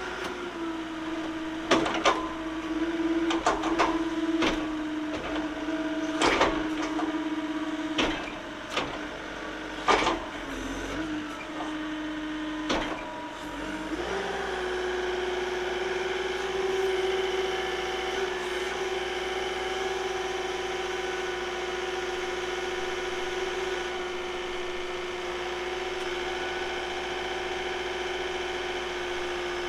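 John Deere 331P compact track loader running with a steady whine, its grapple worked through its motions with a string of sharp clanks and knocks over the first half. Then it runs on steadily at a slightly higher pitch. The loader is being cycled through tilt, dump and curl to check the range of motion on its shortened hydraulic hoses.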